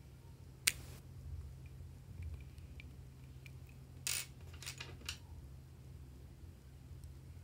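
Lipstick being handled and cut with small metal scissors: one sharp click about a second in as the lipstick is uncapped, then a quick run of scissor snips and clicks around four to five seconds in. A low steady hum runs underneath.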